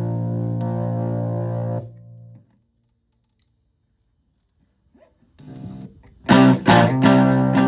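Electric guitar through a treble booster pedal into a Fender Twin Reverb–style amp on the edge of breakup. A held chord rings and is cut off about two seconds in, followed by a few seconds of silence. Then come a few quiet notes, and about six seconds in, loud, lightly distorted chords.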